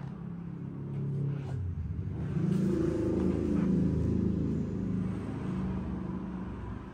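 Harley-Davidson Sportster Iron V-twin, bored out to 1200, running through an S&S 2-into-1 exhaust. The revs rise about two seconds in, then ease back down.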